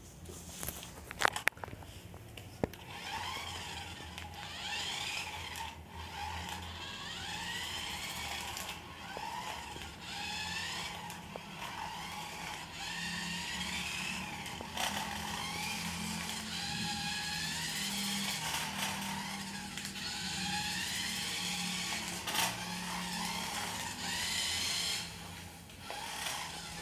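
Small electric motor and plastic gears of a toy remote-control car whirring, the whine rising and falling over and over as the car speeds up and slows down. A few sharp clicks come about a second in.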